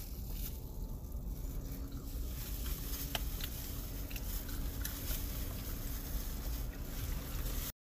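Faint eating sounds, chewing and a few small ticks from plastic-gloved hands, over a steady low rumble in a car cabin. The sound cuts off abruptly near the end.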